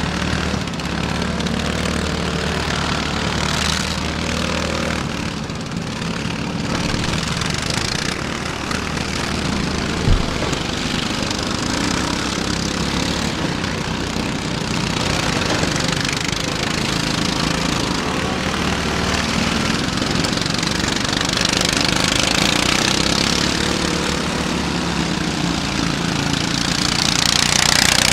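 Several riding lawn mower engines running together, rising and falling as the mowers push against each other in the mud. One sharp thump about ten seconds in, and the engines get louder near the end.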